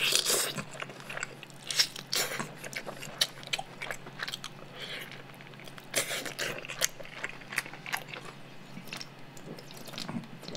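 Close-up eating sounds of a man biting and chewing roast chicken and pulling the meat off the bone: a run of short, irregular wet clicks.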